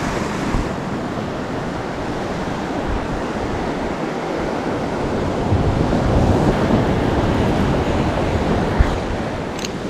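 Steady rushing noise of ocean water and wind on the microphone, swelling in gusts, with a single sharp click shortly before the end.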